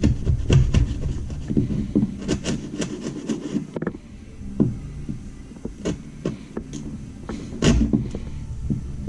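Irregular knocking, tapping and scraping of hand work on wood, busy at first and then sparser, with one heavier thump near the end.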